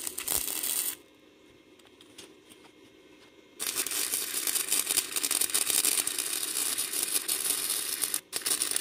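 Flux-core arc welding on galvanized steel conduit with a Titanium Easy Flux 125: the arc crackles for about a second, then stops. A couple of seconds later it strikes again and crackles steadily through a longer weld, breaking off briefly near the end.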